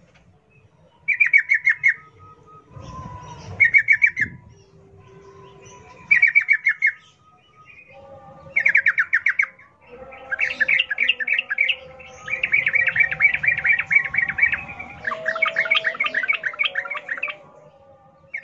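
Yellow-vented bulbuls calling: short bubbly phrases of rapid chattering notes, about one every two and a half seconds. About ten seconds in the phrases become longer and overlap, as if several birds chatter at once, then they stop shortly before the end.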